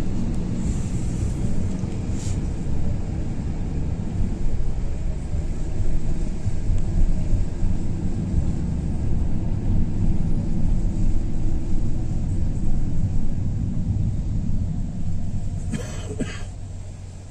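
Steady low rumble of road and engine noise inside a moving taxi's cabin. A few short, sharp sounds come near the end.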